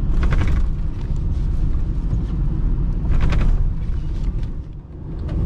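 Car driving along a road, heard from inside the cabin: a steady low rumble of engine, tyres and wind. Two short bursts of higher-pitched noise stand out, one at the very start and one about three seconds in.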